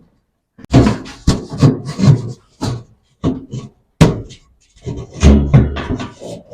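Irregular knocks, bangs and short scraping sounds of metal and plastic parts being handled and fitted together during spin-dryer repair.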